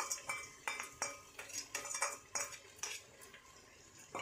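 Metal spatula clinking and scraping against the inside of an aluminium pressure cooker while onions, tomatoes and masala paste are stirred: a string of irregular clinks that die down near the end.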